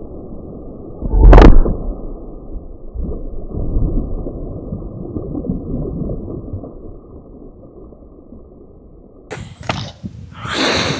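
Slowed-down, muffled sound of a .22 LR bullet striking two water-filled plastic milk bottles: one deep boom about a second and a half in, then low rumbling splashing that fades as the water pours out. Near the end, sound at normal speed returns with a few short bursts of noise.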